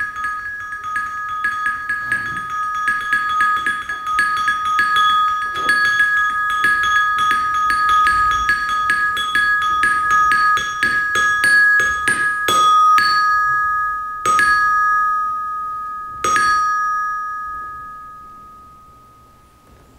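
A small bell or metal chime with two clear, high pitches, struck rapidly over and over, the strikes crowding together, then three single strikes about two seconds apart, each left to ring out and die away.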